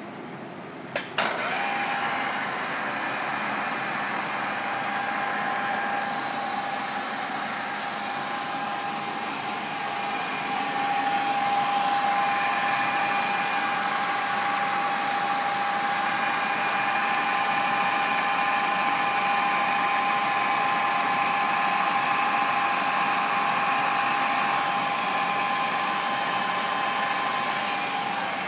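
Deckel FP2NC CNC milling machine running: a couple of sharp clicks about a second in, then a steady motor whine with a clear high tone that gets louder about ten seconds in.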